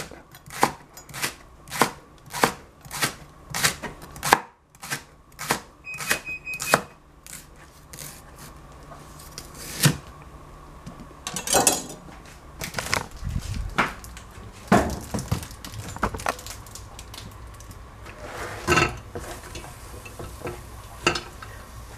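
Chef's knife slicing a leek on a plastic cutting board: steady knocks of the blade meeting the board, about two a second. After about seven seconds these give way to slower, irregular knocks and handling sounds.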